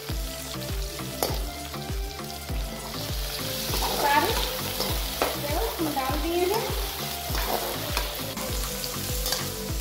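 Chopped vegetables frying in oil in a metal kadhai, sizzling while a metal slotted spoon scrapes and stirs them against the pan in a steady rhythm of about two strokes a second.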